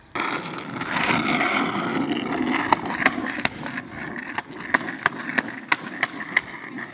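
Skateboard rolling over pavement with a steady wheel rumble. From a little under halfway through, a run of sharp clicks comes about twice a second.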